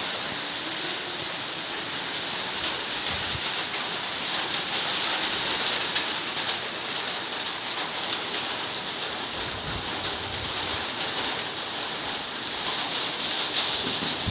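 Monsoon rain falling steadily: a continuous hiss of rain with scattered individual drop ticks.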